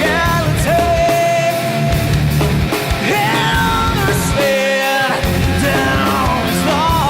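Background rock and roll song: a full band mix with long held melody notes over a driving beat.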